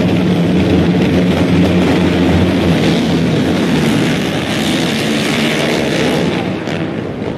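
A full field of racing quads' engines running together at high revs on the start line, then a broad, dense engine noise as the pack launches and accelerates away about three seconds in.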